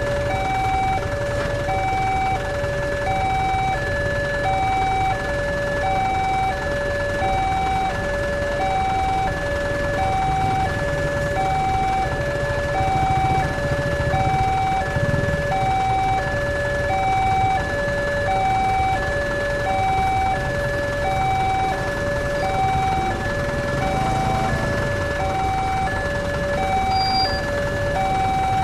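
Railway level-crossing warning alarm sounding its steady alternating two-tone electronic signal, high then low, about once a second each pair, warning that a train is approaching and the barriers are closed. A low rumble of waiting motorcycles and cars runs underneath.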